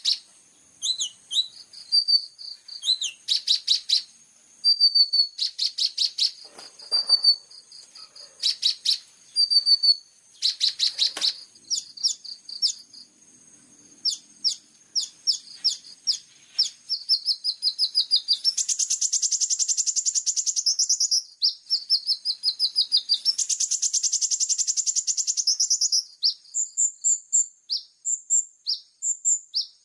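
High-pitched songbird song from a masteran song-training recording: quick series of sharp chirps in short bursts, with two longer, dense rapid trills a little past the middle.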